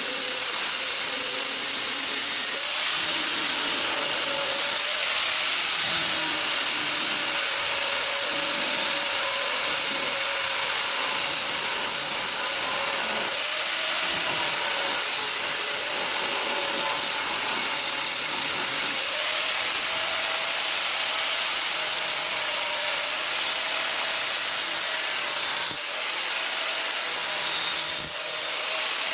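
Handheld power tool running with a steady high whine, its pitch dipping and recovering slightly as it bites into wood, shaping a wooden blade.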